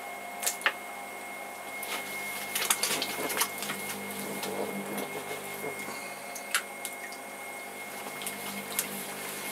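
Electric potter's wheel running with a steady motor whine while wet hands squish and slide over a spinning hump of clay, centring it. Short splashes and drips of water come and go, most of them in the first few seconds.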